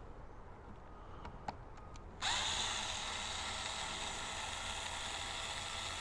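Cordless drill/driver starting suddenly a bit over two seconds in, its pitch rising briefly as it spins up, then running steadily while it backs out one of the screws holding the EV charger's front plate. A few faint clicks come before it.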